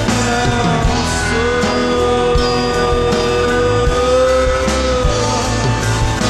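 Rock band playing live: a drum kit with cymbals keeping time under a steady bass, and a long held lead note that bends slightly in pitch.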